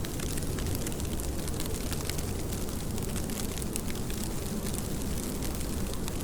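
Steady heavy rain: a dense patter of fine drop ticks over a low, even rumbling hiss.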